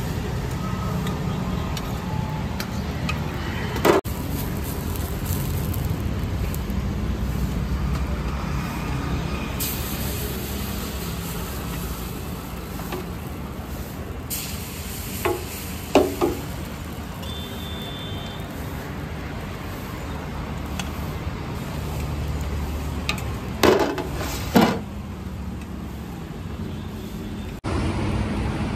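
Steady street traffic rumble around a roadside food cart, with a few short sharp clinks of steel plates and a ladle: once about four seconds in, once midway and twice near the end.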